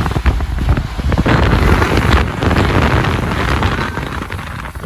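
Wind buffeting the microphone, rough and gusty, over the rumble of a car on the move.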